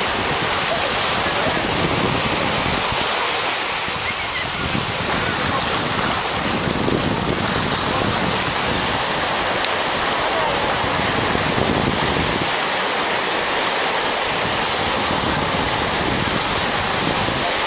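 Steady rush of small waves breaking and washing up the beach, mixed with wind on the microphone.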